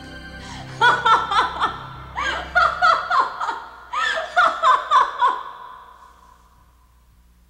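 A woman laughing in three runs of rapid 'ha-ha' pulses, trailing off in an echo that fades about six seconds in.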